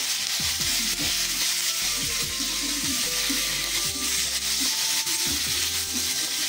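Background music over a light sizzle of raw chicken pieces frying in spice paste in a nonstick wok, stirred with a spatula.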